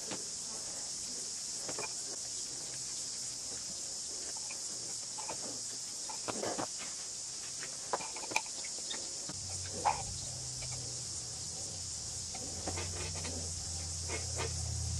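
Steady high-pitched chirring of insects, with a few light taps and scrapes from epoxy being spread onto a carbon fibre mast sleeve. A low hum joins in about two-thirds of the way through.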